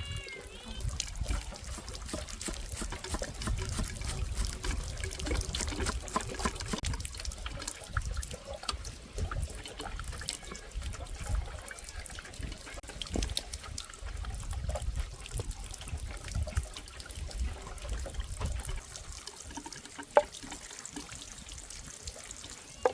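Water trickling and splashing, with many small clicks and knocks and one sharp knock about twenty seconds in.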